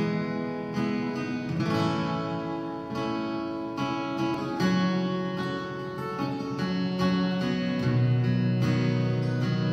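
Acoustic guitar being strummed, full chords ringing on, with a new chord struck about every second or two.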